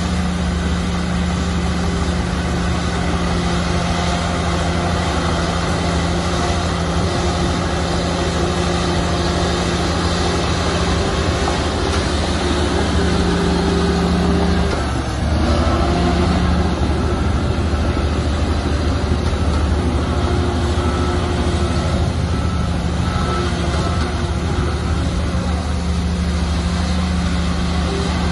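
Heavy diesel engine of earthmoving machinery running steadily under load, with a brief dip in pitch about halfway through before it picks back up.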